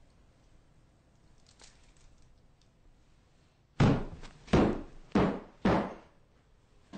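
Faint room tone, then four heavy footsteps from a work boot on a carpeted floor, starting about four seconds in: loud, dull thuds a little over half a second apart, each with a short decay.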